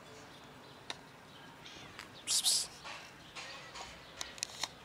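A ginger-and-white cat gives one loud meow about two and a half seconds in. A few faint sharp clicks follow near the end.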